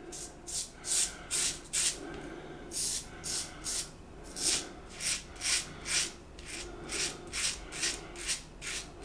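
Blackland Osprey adjustable safety razor, set halfway at 5 with a Gillette Rubie blade, scraping through five days' stubble under shaving lather: short raspy strokes, about two to three a second, in runs of three to five with brief pauses between.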